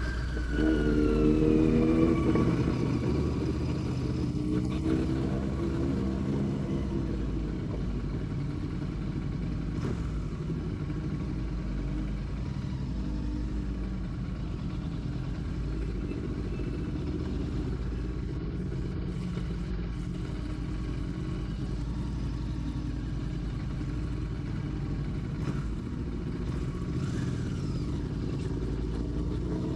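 Royal Enfield Classic 650's parallel-twin engine running on the move: it revs up louder in the first couple of seconds and eases off, runs steadily with a low rumble, then pulls up in pitch again near the end.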